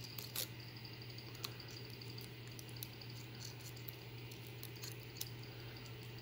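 A handful of faint, irregular small clicks and light scrapes of a metal lock pick being worked into a brass padlock's keyway under tension, over a steady low hum.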